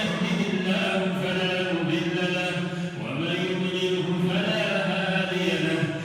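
A man's voice reciting the Quran in a melodic, drawn-out chant, holding and bending long notes, with a brief pause for breath about three seconds in before the next phrase.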